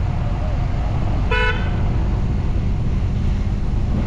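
A vehicle horn gives one short beep about a second and a half in. Under it runs the steady low rumble of engine and wind noise from the ride.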